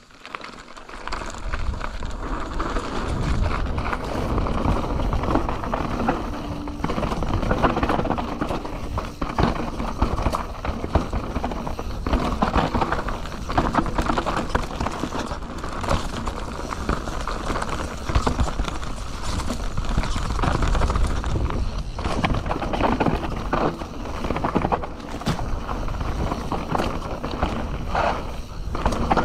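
Canyon Torque CF 9 full-suspension mountain bike riding down a dry dirt and gravel trail: tyres rolling and crunching over the surface in a continual rush, with many short rattles and knocks from the bike over bumps.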